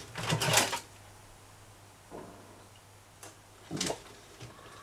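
A drawer being pulled open and rummaged through: a louder sliding scrape near the start, then a few quieter knocks and rattles of its contents.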